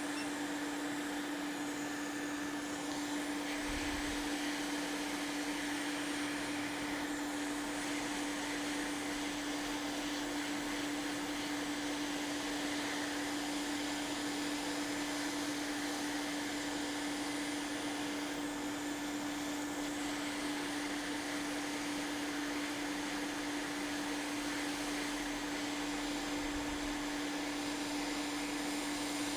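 Hot-air rework station blowing steadily at full airspeed, a hiss of air with a steady motor hum, heating flux so it spreads in a thin coat.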